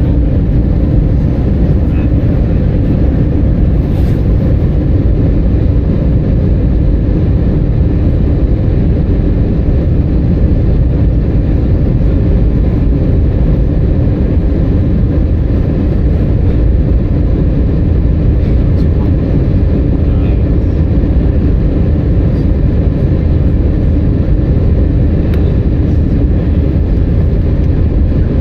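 Steady drone of an Airbus A320-200's engines and airflow heard from inside the cabin, a deep, unchanging noise with a faint hum of steady tones in it.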